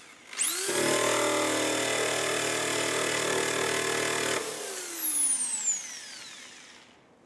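Handheld rotary tool with a wire brush wheel spinning up with a sharp rising whine, running steadily against the car's steel rear fender, then switched off just after four seconds in and winding down with a long falling whine.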